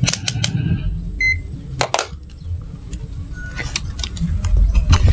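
A digital multimeter gives one short electronic beep about a second in, while being set up to measure the speaker's DC resistance. Several sharp clicks and knocks come from handling the meter and its probes, over a low background rumble.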